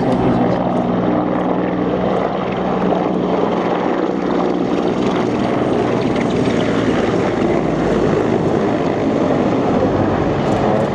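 CH-53 heavy transport helicopter flying low, its engines and rotor making a loud, steady drone. A steady tone runs through the first five seconds or so, then gives way to an even rushing noise.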